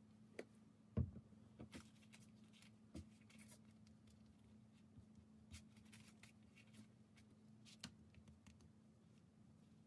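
Faint food-prep handling sounds: mustard being squeezed from a plastic squeeze bottle and then brushed over tortillas on a wooden board, with light scraping and scattered small ticks. One low thump about a second in. A faint steady hum underneath.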